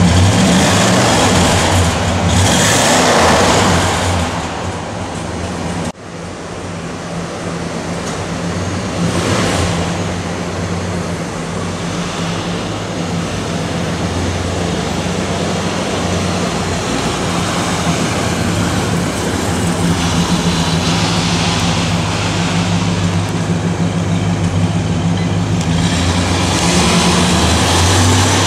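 1969 Ford Galaxie 500XL's 429 cubic-inch Thunderjet V8 running as the car is driven slowly, a steady low engine note that swells briefly near the start and breaks off sharply about six seconds in before carrying on.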